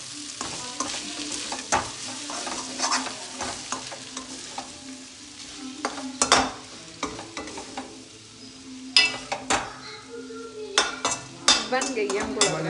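Metal spatula stirring and scraping ivy gourd (kundru) sabzi in a metal kadhai over a gas flame, the vegetables sizzling as they fry. Repeated scrapes and clacks of the spatula against the pan come most thickly in the last few seconds.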